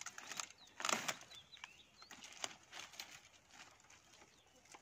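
Small birds chirping in short calls, over brief rustles and crackles in dry undergrowth, the loudest about a second in.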